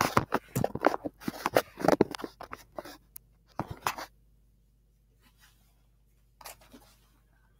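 A heavy backpack being handled: a flurry of short rustling, scraping and knocking noises, then a pause, then a few more rustles near the end.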